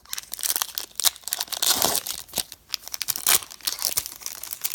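Foil trading-card pack wrapper being crinkled and torn open by hand, with irregular crackles and short rips; the wrapper is stubborn and hard to open.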